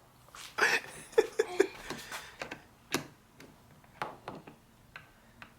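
Scattered light clicks and taps of a screwdriver being worked against a car's rear bumper by a small child, with a few brief child's vocal sounds about half a second to a second and a half in.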